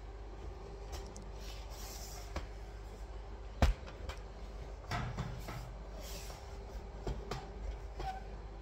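Handling noises while working at a wall: one sharp knock a little over three and a half seconds in, then several lighter clicks and scrapes, over a steady low hum.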